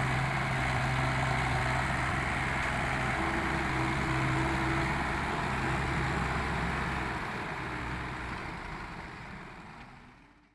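Small excavator's diesel engine running steadily, with a brief higher steady tone about three seconds in; the sound fades away over the last few seconds.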